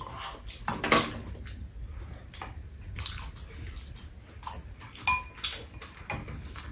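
Eating at a shared meal: spoons and metal chopsticks tapping and scraping against bowls, a pan and a metal tray, with one short ringing clink about five seconds in, along with the mouth sounds of eating.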